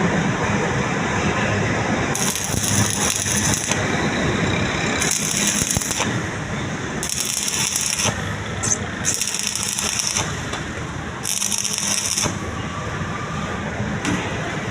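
Metal clattering and rattling from workshop repair work, broken by five bursts of high hissing noise of a second or so each.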